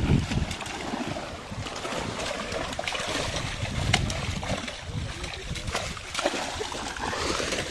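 Netted fish thrashing and splashing in shallow pond water as a seine net is drawn in to the bank, with repeated sharp splashes over a steady slosh of churned water.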